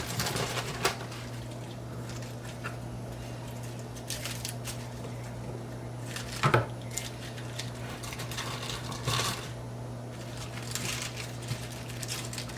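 Scattered light knocks and rustles of kitchen prep: chopped iceberg lettuce being gathered and put into a plastic Tupperware container. The loudest knock comes about six and a half seconds in, over a steady low hum.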